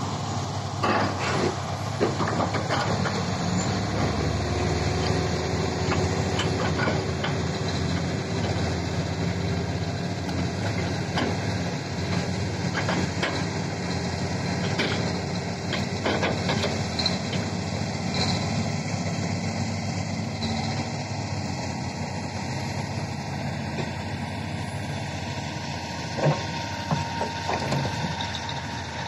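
Heavy diesel earthmoving machinery, a crawler bulldozer and a hydraulic excavator, running steadily, with scattered knocks and one louder knock near the end.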